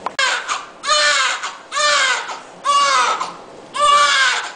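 Newborn baby crying: a run of about five wails, roughly one a second, each rising and then falling in pitch.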